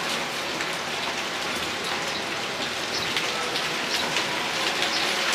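Heavy rain with hailstones pelting down, a dense steady hiss full of small sharp impacts.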